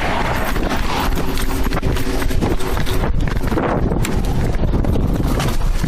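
Body-worn camera jostling as the wearer runs: rapid, uneven footfalls and knocking of the camera against gear, with wind buffeting the microphone.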